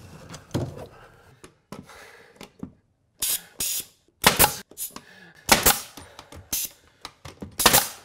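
Pneumatic brad nailer firing a string of about six sharp shots, half a second to a second apart, as it nails crown molding into place. Before the shots come a few lighter clicks.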